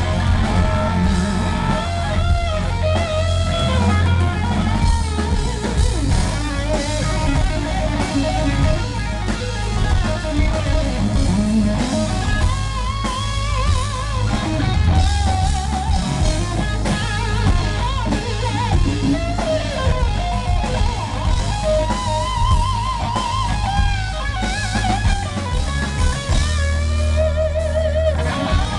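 A rock band playing live, loud: guitar and drum kit over a heavy bass, with a wavering lead melody line.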